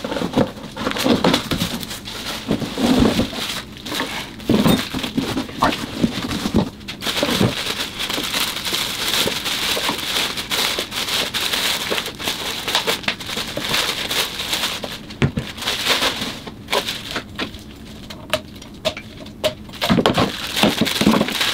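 Clear plastic wrapping crinkling and rustling as it is pulled off a newly unboxed cordless air compressor. Now and then there are knocks and thumps as the unit and packing are handled on the bench.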